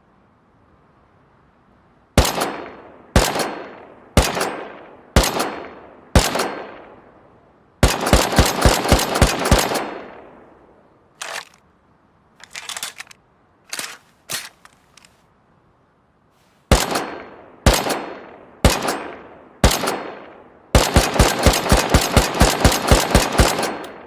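Makeshift semi-automatic rifle sound effect firing: five single shots about a second apart, then a rapid string of about eight, each with a ringing tail. Midway come a few quieter, shorter clicks and rattles, then four more single shots and a final rapid string of about a dozen.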